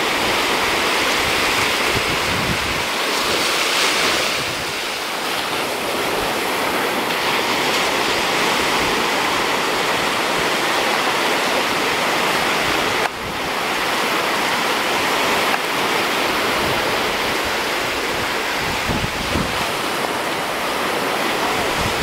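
Ocean surf breaking and washing up a sandy shore in a steady wash of noise, with wind buffeting the microphone in low rumbles.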